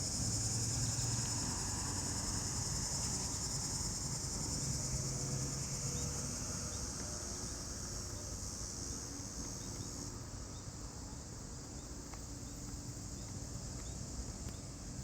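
Steady high-pitched chirring of insects, like crickets, under a faint low hum; the highest part of the sound drops away about ten seconds in.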